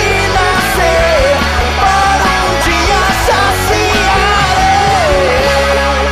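Rock band playing with no lyrics sung: a lead melody bending up and down in pitch over drums and bass. About five seconds in the drums stop and a held chord rings on.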